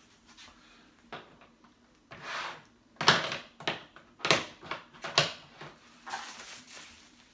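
Clear plastic packaging crinkling and rustling as it is handled, in a string of short, irregular bursts.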